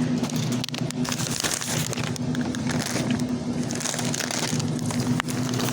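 Rattling, crinkling handling noise made of many small clicks, over a steady low hum.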